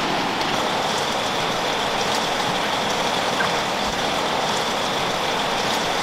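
Steady, even hiss of rushing water, with a faint steady high tone running through it.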